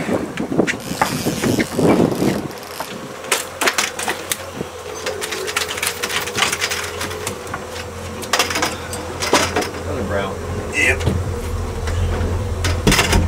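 A brown trout being landed: splashing as it is netted at the surface, then irregular knocks and slaps as the fish flaps in the landing net on the boat's deck, over a steady hum.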